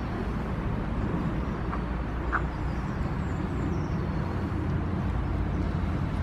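Steady low rumble and hiss of a pushchair rolling over pavement while being walked, with two faint short squeaks about two seconds in.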